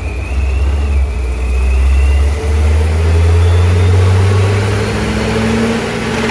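Supercharged C5 Corvette V8 running, with a steady, slightly wavering tone over the low engine note. The tone is air passing the open blow-off valve, a whoopee-cushion-like noise first mistaken for the motor knocking.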